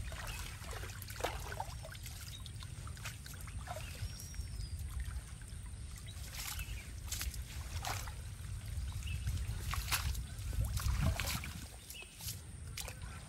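Pond water splashing and trickling around a bamboo-framed hand net as people wading work it and lift it, water draining through the mesh, with scattered short sharp splashes.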